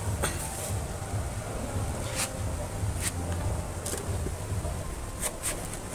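Outdoor ambience by a ditch: a low, uneven rumble, a faint steady high hum, and about six short sharp high clicks or chirps scattered through it.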